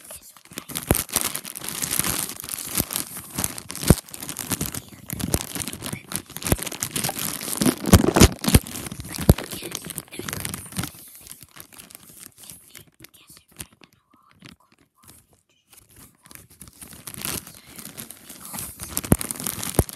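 A shiny plastic wrapper being torn open and crumpled by hand, with dense crinkling and crackling. There is a quieter lull about two-thirds of the way through, then more crinkling near the end.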